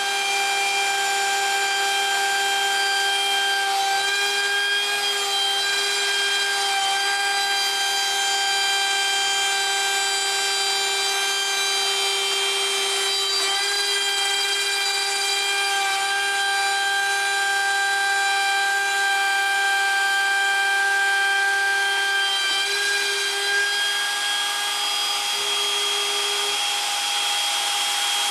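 CNC router spindle running with the bit cutting into cedar: a steady high whine over a wide hiss of the cut. The whine's pitch shifts slightly about halfway through and again after about 22 seconds as the load on the bit changes.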